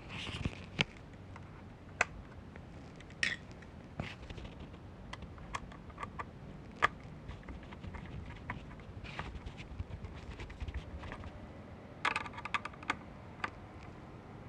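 Scattered light clicks and taps of a Phillips screwdriver and hard plastic parts as a power window master switch is screwed back into its door trim piece, with a short flurry of clicks near the end.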